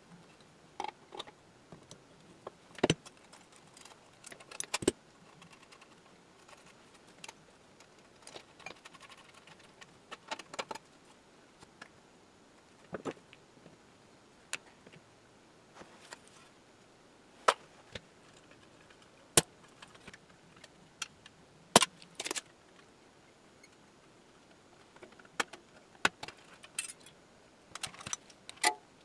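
Irregular sharp metallic clicks and clinks of an adjustable wrench and screwdriver working nuts and hardware off an old crystal radio's front panel, a few seconds apart.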